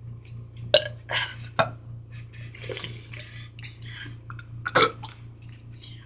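Soda drinking and burping: a sharp knock a little under a second in, then several short bursts, among them burps, over a steady low hum.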